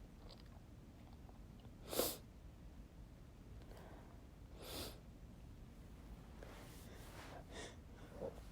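Two stifled sneezes: a short sharp one about two seconds in and a softer one a few seconds later.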